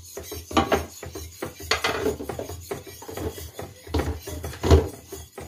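A metal utensil beating eggs in a bowl: irregular knocks and scrapes against the bowl, with the heaviest knock near the end.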